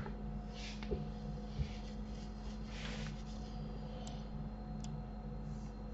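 Quiet room tone under a steady low electrical hum, with a few faint clicks and soft rustles.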